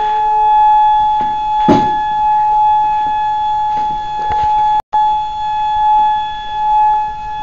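A steady tone from two loudspeakers driven by a signal generator. Its loudness swells and fades several times as the listening position moves through the interference pattern of loud antinodes and quiet nodes. There is a brief knock about two seconds in, and the tone breaks off for an instant about five seconds in.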